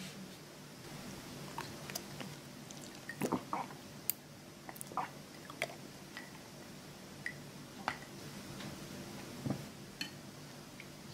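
Ice cubes clinking and knocking against the inside of a glass as an iced drink is stirred with a plastic straw: an irregular scatter of light, sharp clicks. Near the end a metal spoon taps and scrapes into a plate of rice and sauce.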